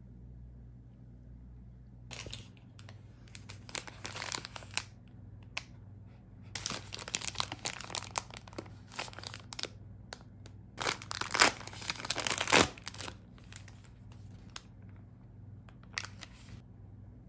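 Paper snack bag crinkling in the hands and being torn open along its tear strip, in several bursts of crackling with the loudest about eleven to twelve seconds in.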